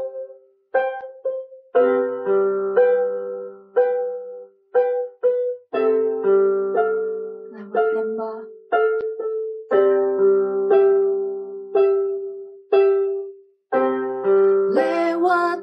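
Instrumental passage of a worship song: chords and single notes on a plucked-string or keyboard instrument, each ringing out and fading, in short phrases with brief pauses. A singing voice comes in near the end.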